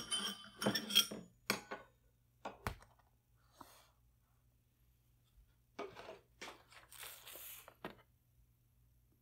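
The tail of a short chime rings out in the first second. Then a ceramic bowl is handled and set down on a leather surface: a few light clinks, a solid knock about two and a half seconds in, and a stretch of rubbing and scraping near the end.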